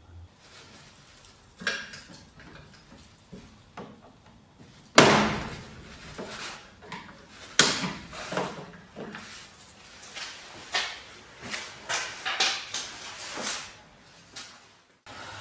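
Clicks and knocks as the case of a Merlin MR800a garage door opener is popped open to reach its learn button. A sharp knock about five seconds in is the loudest, followed by a busy run of clicks and rattles.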